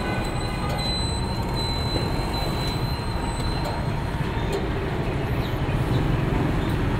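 Petrol dispenser pumping fuel through the nozzle into a motorcycle's tank: a steady mechanical hum and rumble with a thin high whine that fades out about four seconds in.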